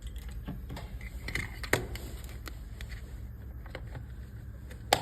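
A few light clicks and taps of hands working wires and terminal screws, the sharpest about two seconds in, over a steady low hum.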